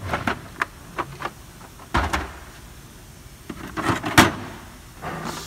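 Hard plastic tool cases being handled on a steel cabinet shelf: a string of clicks and knocks, a dull thump about two seconds in, and a cluster of rattling clicks near the end, the last a sharp loud click.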